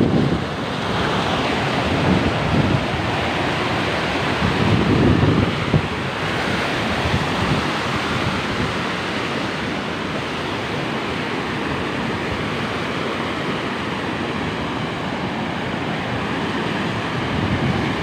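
Muddy floodwater pouring over an edge and rushing through a swollen channel in a steady, loud wash of water. Gusts of wind buffet the microphone a few times in the first five seconds.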